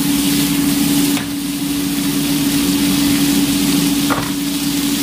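Green beans sizzling steadily in hot olive oil in a frying pan, being crisped until charred in spots. A steady low hum runs underneath.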